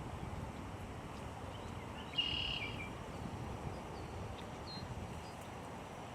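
Wind on the microphone, a steady low rumble, with a short, high bird call about two seconds in and a few faint chirps later.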